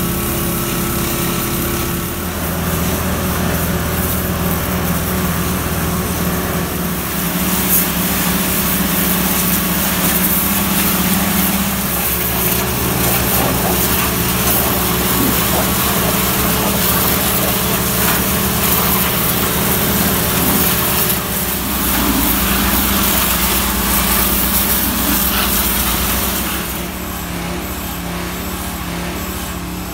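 RNLI lifeboat launch tractor's engine running as it moves the lifeboat and its trailer, under a steady hiss. The engine note shifts a few times, and the sound drops a little near the end.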